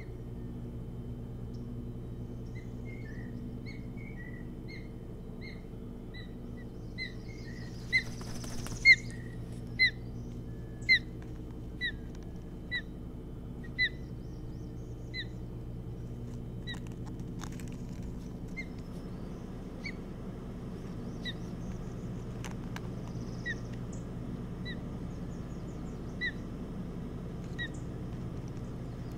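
Osprey calling: a long series of short, high chirps, about one a second, loudest in the middle, with a brief rustle of wings about a third of the way in as the mate lands on the nest. A steady low hum runs beneath.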